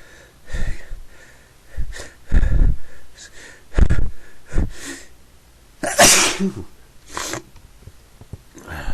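A person sneezing in a fit: several sharp sneezes and breaths in quick succession, the loudest sneeze about six seconds in.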